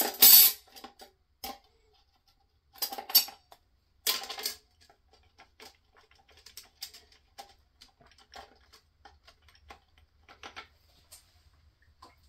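Steel and friction clutch plates of a 4L80E automatic transmission clattering and clicking against each other and the clutch drum as they are handled by hand, in three louder rattling bursts early on, then lighter scattered ticks.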